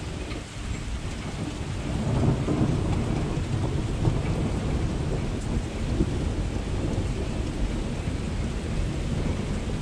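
Steady rain falling, with a low rumble of thunder that swells about two seconds in and rolls on through the rest.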